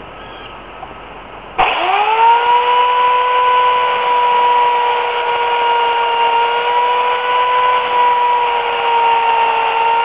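Remington Limb N Trim RM1415A electric chainsaw, an 8-amp corded motor, switched on about a second and a half in. It spins up with a quickly rising whine, then runs at a steady high pitch.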